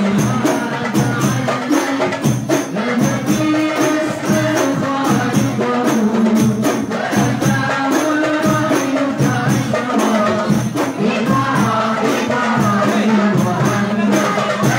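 Hadroh ensemble: voices singing a devotional song over a steady beat of hand-struck frame drums (rebana).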